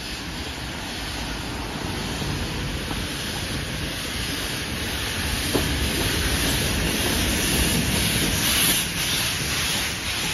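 Steam locomotive, GWR Manor class 7822 Foxcote Manor, working a train away from the station: a steady rush of exhaust and hissing steam that grows louder as it nears the bridge.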